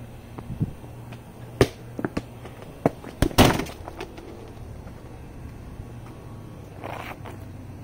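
Small soccer ball being kicked and bouncing on concrete and against a wall: a run of sharp thuds, the loudest about three and a half seconds in.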